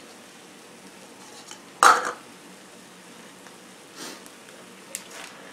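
Faint steady sizzle of a frying pan of ground chicken, spinach, onions and mushrooms cooking, with one sharp knock about two seconds in and a couple of softer ticks near the end as mushrooms are broken up over the pan.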